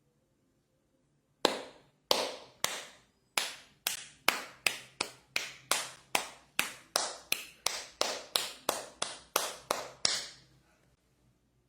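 About two dozen sharp hand strikes in a steady rhythm. They start slowly, settle at about three a second, and stop about a second and a half before the end.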